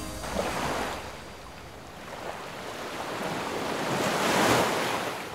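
Waves washing onto a shore: a rush of surf that dies down, then swells to its loudest about four seconds in and falls away.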